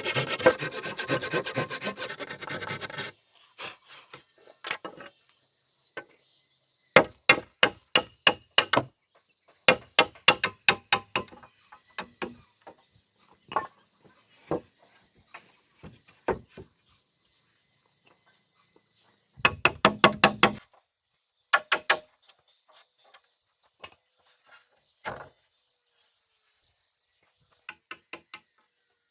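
Timber being worked with hand tools. It opens with a few seconds of quick rasping strokes, then turns to scattered clusters of sharp knocks and taps on wood. A faint steady insect buzz runs behind.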